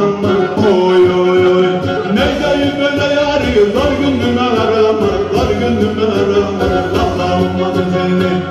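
A man sings a Black Sea folk song (türkü) into a microphone, accompanied by a Karadeniz kemençe, the small three-string bowed fiddle of the Black Sea coast, over a steady beat.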